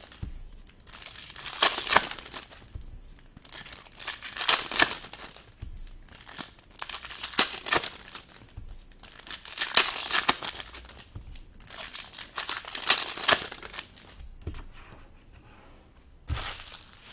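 Plastic and foil wrapping on trading card boxes and packs crinkling and tearing in repeated bursts as it is ripped open by hand. The crinkling dies down near the end, followed by a single soft knock.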